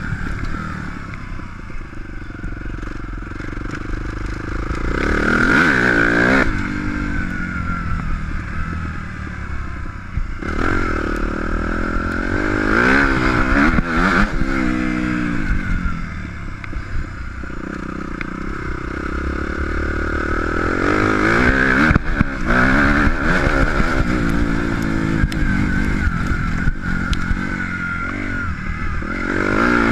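Suzuki RM-Z250 motocross bike's four-stroke single-cylinder engine, ridden hard on a dirt track. It revs up through the gears about four times, with the pitch climbing each time, and eases off between the pulls. A steady low rumble runs under it throughout.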